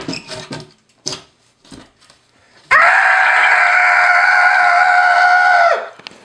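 A couple of knocks and scrapes as a ceiling attic hatch panel is pushed up. Then, nearly three seconds in, a person lets out one loud, long scream at a steady pitch for about three seconds, which cuts off near the end.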